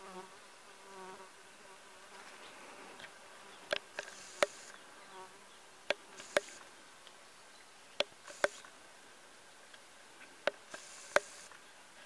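A tabby cat chewing a freshly caught mouse: sharp crunches of bone, mostly in pairs about every two seconds. A fly buzzes close by in the first second or so.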